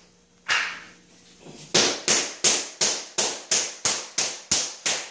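A mallet beating a freshly laid self-adhesive vinyl plank down onto the floor to seat its adhesive: one blow about half a second in, then a steady run of sharp blows at about three a second.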